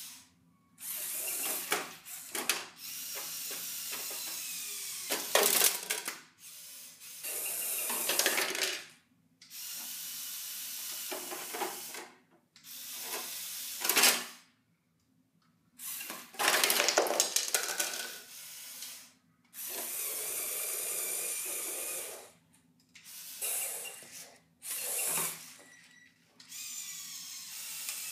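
Electric motors and gearing of a remote-controlled Lego Technic Volvo wheel loader (set 42030) whirring in repeated bursts of one to three seconds as it drives and works its bucket, stopping between bursts. A few sharp clatters of Lego pieces can be heard as the station model is pushed apart.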